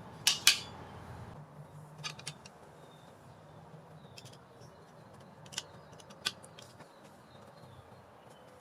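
Scattered light clicks and taps of a small metal doorbell mounting plate and tiny screws being handled and fitted, with a few faint high chirps, likely birds, in the background.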